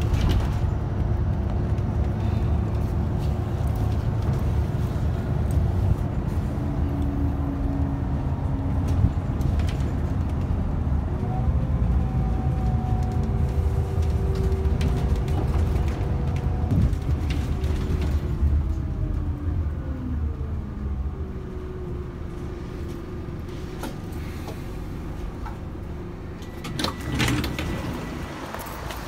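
Cabin sound of a Scania K280UB Citywide LE city bus under way: a low diesel rumble, with a whine that rises and falls in pitch through the middle. It quietens from about two-thirds of the way through as the bus slows, and a short clatter near the end comes as the doors open.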